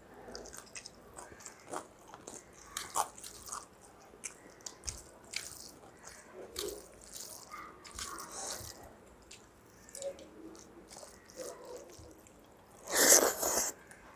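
Close-up eating sounds: chewing and biting into rice with saag and fried fritters, with wet squishing and many small smacks, and one louder burst about a second before the end.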